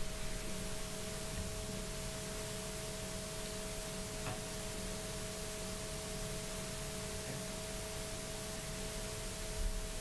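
Room tone: a steady hiss with a low electrical hum and two faint steady tones, and one faint tick about four seconds in.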